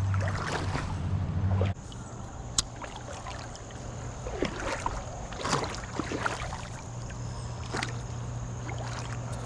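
Creek water moving and sloshing around a wader's legs, with scattered small splashes over a steady low hum; the level drops suddenly a couple of seconds in.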